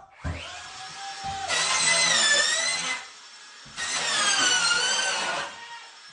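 Power drill whirring in two bursts of about a second and a half each, its pitch wavering up and down.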